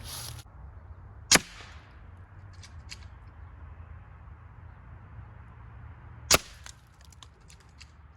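Two sharp shots about five seconds apart from a regulated .25-calibre AEA Challenger air rifle firing slugs, each followed by a few fainter clicks.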